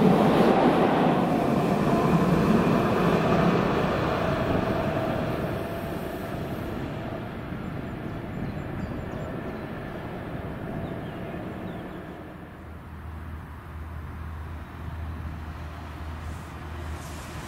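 DB Class 218 diesel locomotive running as it pushes its passenger train past and away, loudest at first and fading steadily as the train recedes. From about two-thirds of the way in, a quieter low steady engine hum of a distant diesel train takes over.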